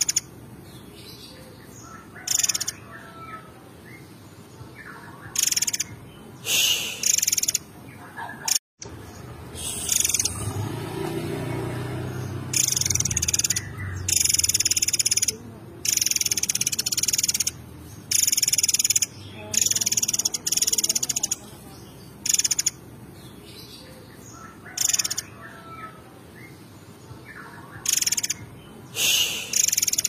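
Caged murai air mancur songbird singing loudly in short, high-pitched bursts of rapid phrases, a dozen or more, with brief pauses between them. A low rumble runs under the song for a few seconds around the middle.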